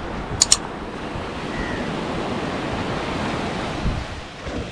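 Surf washing steadily onto a sandy beach, with some wind on the microphone. About half a second in, a sharp double mouse click from an overlaid subscribe-and-bell button animation.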